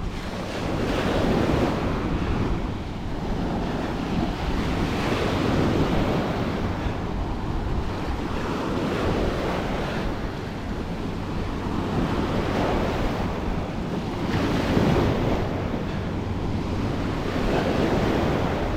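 Ocean waves breaking and washing up on a beach, the surf swelling and easing every three to four seconds.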